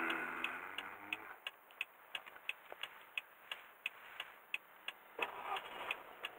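Turn-signal indicator ticking steadily inside the cabin of a Subaru Crossover 7, about three clicks a second, over a low background of the car's running noise, which rises about five seconds in.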